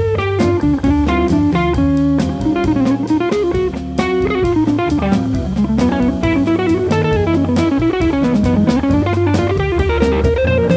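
Instrumental jazz-funk groove: a semi-hollow electric guitar solos in fast single-note runs that climb and fall, over Hammond organ bass notes and a drum kit.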